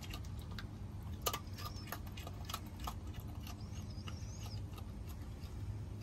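A raccoon crunching and chewing pieces of dry kibble-like food taken from a person's palm: irregular crisp crunches and clicks, about two or three a second.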